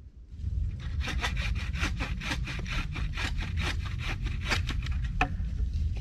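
Hand saw cutting through wood in quick, even back-and-forth strokes, about three a second, breaking off into a few scattered strokes near the end.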